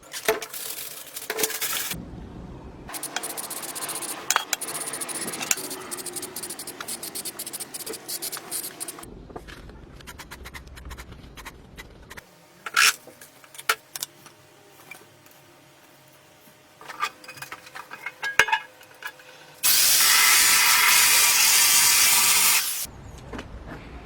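Hand work on an old weighing scale being restored: scraping and rubbing for several seconds, then scattered sharp knocks and clicks. Near the end comes a loud steady hiss lasting about three seconds, like a spray can or an air line.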